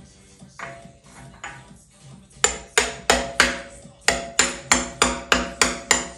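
Hand ratchet clicking as the camshaft bearing cap bolts on a Toyota 4A-GE head are run down: a run of sharp metallic clicks, about three a second, starting about two and a half seconds in with a short break near the middle.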